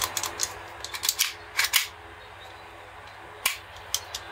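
Sharp mechanical clicks from a WE M1911A1 gas blowback airsoft pistol's safety being worked by hand: a few light clicks, then louder single ones a little under two seconds in and about three and a half seconds in.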